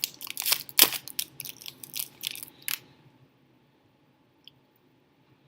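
Trading-card pack wrapper being torn open and crinkled by hand: a rapid run of sharp crackles that stops about three seconds in.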